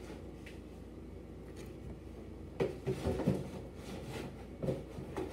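Small items being handled: a cluster of soft knocks and rustles a little over halfway, then a few more near the end.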